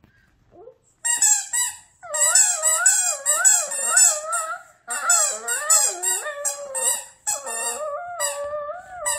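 Small Maltese–Shih Tzu mix dog chewing on a spiky rubber squeaky ball, making long runs of high, wavering squeaks with short breaks, starting about a second in.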